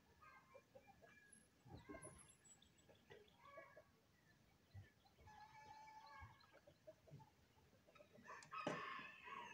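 Farmyard chickens clucking faintly, with a rooster crowing: one long held crow about halfway through and a louder call near the end.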